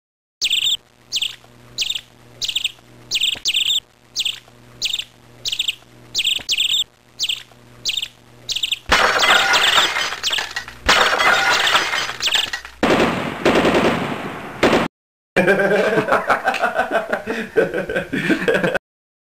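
A string of separate sound effects. First comes a long run of short, high, bird-like chirps, about two a second. Then there are several seconds of loud noisy crashing, and two more different effects, the last with a pitched, wavering tone.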